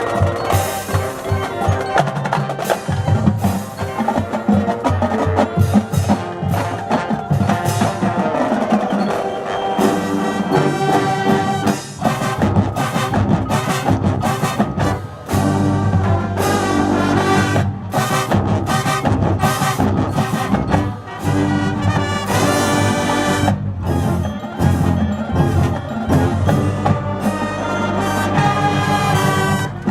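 High school marching band playing its competition field show: brass over drums and mallet percussion, with frequent sharp drum hits.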